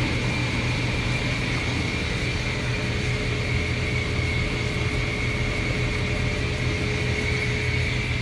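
Steady machine hum from a ventilation fan, with a low drone and a thin, high steady whine over it.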